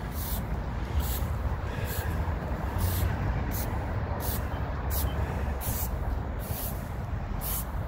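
Stiff broom bristles swishing across concrete patio stones in repeated short strokes, roughly one a second, over a steady low rumble.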